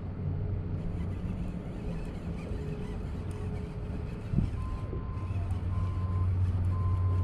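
A steady low motor hum that grows louder after a sharp knock about four seconds in. From then on a high electronic beep repeats about once a second.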